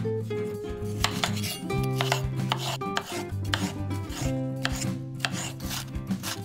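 Chef's knife cutting a bell pepper on a bamboo cutting board: a quick, irregular run of blade strikes on the wood as it slices the pepper into strips and dices them. Background music plays underneath.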